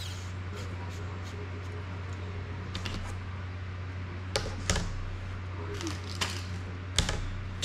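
A few sharp clicks and knocks as the hard plastic frame and prop guards of an FPV drone are handled and set down on a cutting mat, the loudest about four and a half and seven seconds in, over a steady low hum.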